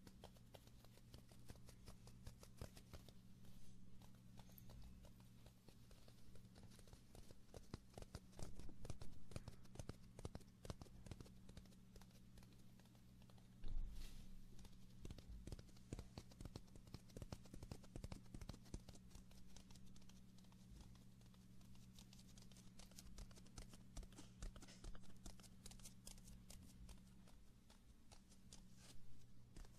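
Faint, close-miked ASMR handling sounds: a dense run of small clicks and crackles, louder for a couple of seconds about a third of the way in, with one sharp click near the middle. A steady low hum sits underneath.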